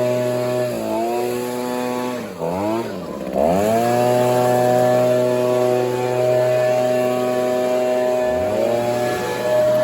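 Gas-powered two-stroke leaf blower running at high throttle, the engine note easing off briefly about a second in, dropping low near the middle and revving back up, then dipping once more near the end.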